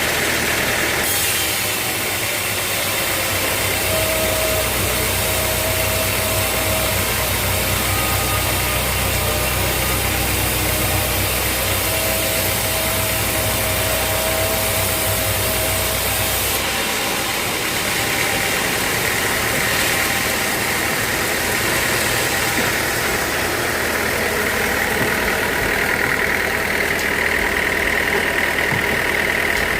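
Sawmill machinery running steadily. A deep low hum with a steady tone above it lasts through the first half and drops away about two-thirds of the way in, leaving a higher, thinner running sound.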